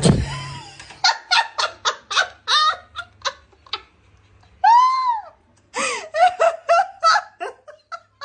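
A person laughing hard in short, high-pitched bursts, about four a second, with a single rising-and-falling squeal about halfway through. A thump sounds at the very start.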